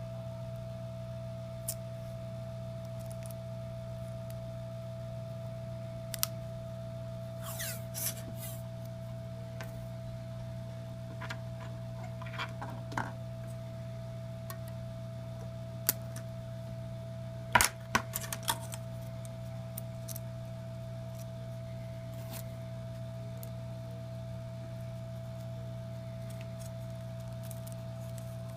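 Scattered small clicks, taps and light rattles of small parts and tools being handled, in short clusters, the loudest about two-thirds of the way through. Under them runs a steady low electrical hum with a faint steady whine.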